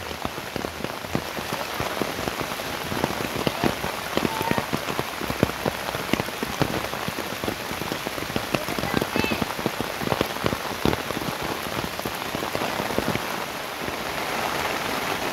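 Fairly heavy rain falling on a taut waterproof tarp flysheet stretched over a tent, a dense spatter of individual drops striking the sheet. About fourteen seconds in it settles into a smoother, even hiss of rain.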